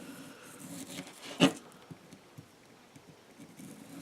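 A knife blade cutting partially frozen chicken breast on a board: faint scraping, with one sharp tap about a second and a half in and a couple of lighter ticks after it.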